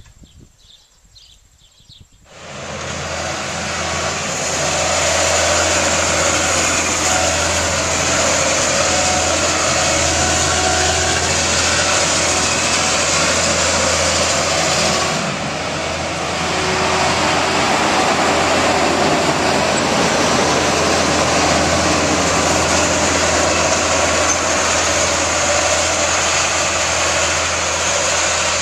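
Heavy farm machinery running steadily: a loud, even mechanical noise with a low hum that starts abruptly about two seconds in and dips briefly about halfway through.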